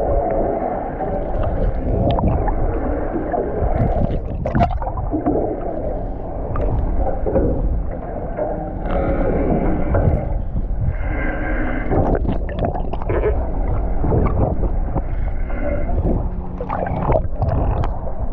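Steady rumble of water and boat noise, with a few sharp knocks scattered through it.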